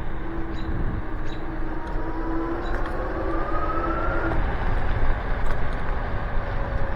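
Nanrobot Lightning 2.0 electric scooter being ridden: steady wind and road noise from its solid tyres, with the dual hub motors' whine rising in pitch for about two seconds as it speeds up, then fading.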